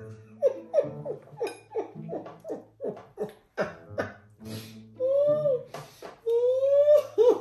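A woman laughing hard through a hand held over her mouth, in quick bursts of about three a second, breaking into two long high squeals near the end.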